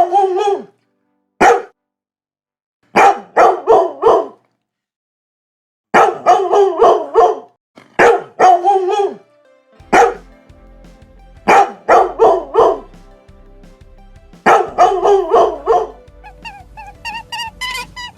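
A dog barking in repeated volleys of three to five barks with short pauses between. Background music comes in about halfway through and takes over near the end.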